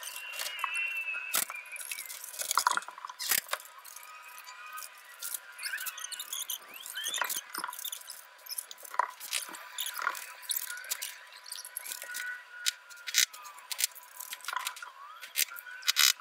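Sped-up time-lapse sound of roof work on a shed: a fast, irregular jumble of sharp clicks and knocks mixed with high, squeaky chirps and glides.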